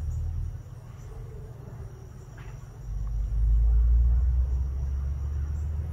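Low rumble that drops away about half a second in and swells back up from about three seconds in.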